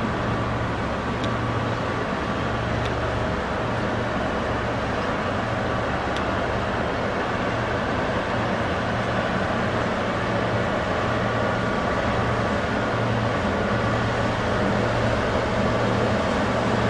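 Steady low drone of an inland cargo barge's engine as it passes, over the rush of its wash, growing slightly louder near the end.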